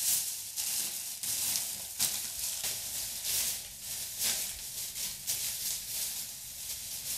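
Plastic shopping bag rustling and crinkling as hands rummage through it, in uneven surges.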